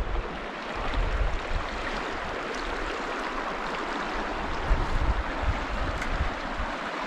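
South Platte River water rushing steadily, with wind buffeting the microphone at times.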